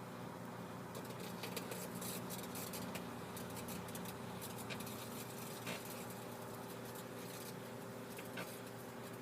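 Microwave oven running with a steady low hum while heating a metal can of beans with copper pieces inside, with scattered faint crackles and ticks.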